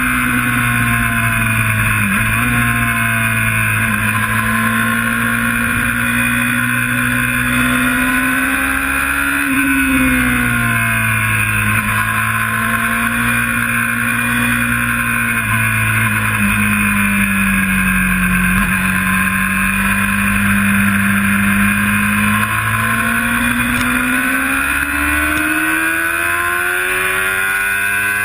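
Sports motorcycle engine running hard on track, with steady wind rush. The revs hold fairly even, dip a few times, then climb steadily over the last few seconds as the bike accelerates.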